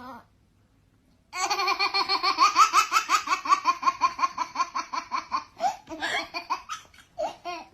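A baby laughing in a long run of rapid, even laughs starting about a second in, breaking into shorter bursts near the end.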